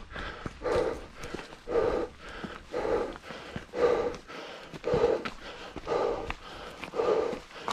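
A hiker's heavy breathing close to the microphone while climbing, about one hard breath a second in a steady rhythm, with footsteps on the dirt trail.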